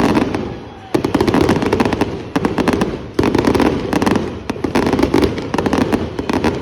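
Fireworks going off in a dense run of rapid crackling pops. Fresh loud volleys start about one, two and a half, and three seconds in.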